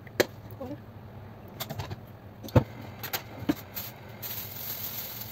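A few sharp knocks and clinks of cookware being handled at a gas stove while cooking oil goes into an empty pot, the loudest about two and a half seconds in. A faint high hiss comes in near the end.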